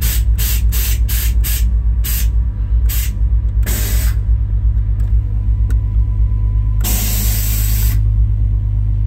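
Air-ride suspension valves on a 1991 Chevy Silverado hissing air in a run of short bursts, then a longer hiss around four seconds in and a hiss of about a second near the end. The truck's engine idles under it with a steady low pulse.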